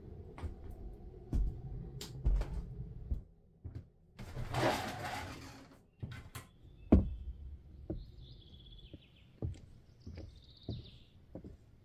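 Footsteps knocking on wooden floorboards and an old wooden door being opened, with a rushing swell as it swings. Near the end a small bird chirps twice outside.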